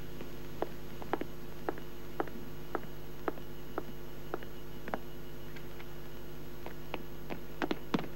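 A woman's footsteps in hard-soled heels clicking on a hard floor at a steady walk, about two steps a second, with a few quicker steps near the end, over a steady low hum.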